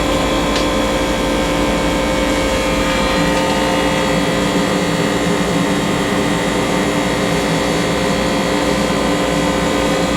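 A machine running steadily: a constant loud drone with several steady humming tones that does not change.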